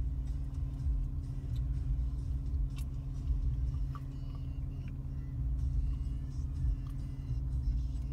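Low rumble inside a Range Rover Sport's cabin, with music playing faintly from the car's stereo.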